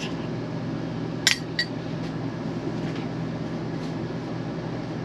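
A spoon and a ceramic ramekin clink twice in quick succession about a second in, over the steady hum of the RV's air conditioner.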